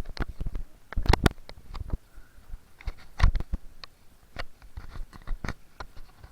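Irregular clicks, knocks and rustles of camping gear being handled and packed away, with a few louder knocks about a second in and again past three seconds.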